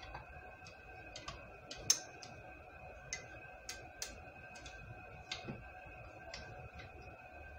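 Debubbler tool knocking against glass canning jars as it is worked down through jars of rice and water to release air bubbles: faint, irregular light clicks and taps, one sharper knock about two seconds in.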